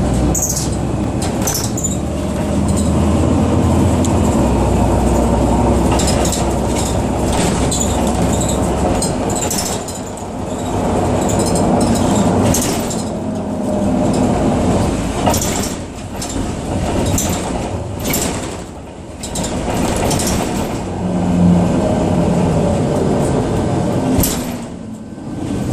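Iveco Irisbus Citelis city bus running with its engine labouring, which the owner calls a weird sound and the motor struggling. A steady low drone stops about nine seconds in, leaving an uneven rumble with rattles and knocks.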